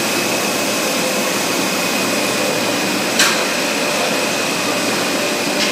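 High-speed stretch film production line running: a steady loud machine hiss with a thin, steady high whine, and a single sharp click about three seconds in.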